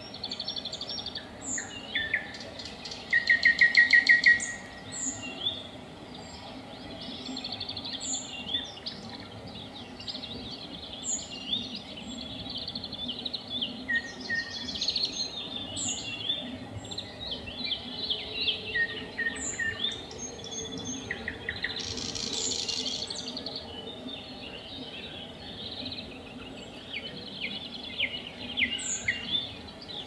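Morning bird chorus led by singing nightingales: varied phrases of whistles, trills and clicking notes, with a loud run of fast repeated notes about three seconds in. Short high calls recur every second or two over a steady low background hum.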